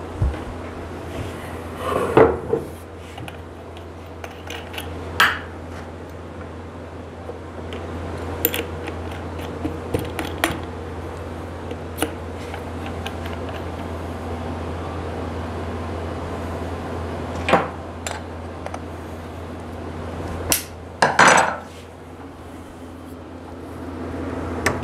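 Metal clinks and knocks from a router being handled during a bit change: the collet wrench, collet adapter and router base set down and bumped on a wooden router table, with a few louder knocks scattered through, over a steady low hum.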